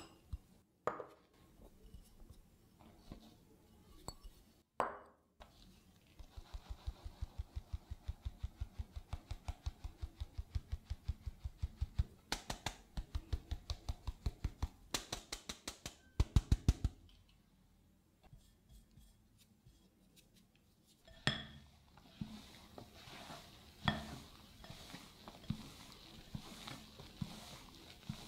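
Stainless mesh sieve tapped over a glass mixing bowl, a long even run of about four taps a second, to sift almond flour and cake flour. After a pause, a spatula knocks and scrapes against the glass bowl while folding the flour into the batter.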